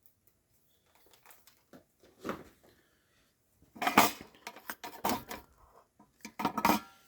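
Light clinks and clicks of small metal tools and parts handled on a work bench during battery soldering, in a few short clusters, the busiest about four to five seconds in.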